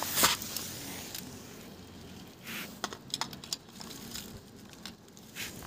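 Small toy cars being pushed by hand over a gritty concrete floor and set against plastic building blocks: light scraping with a scattering of short, sharp clicks.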